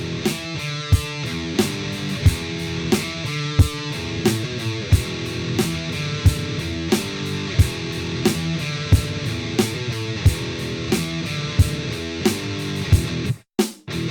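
Background rock music: electric guitar chords over a steady drum beat. Near the end it breaks into a few separate hits with short silences between them.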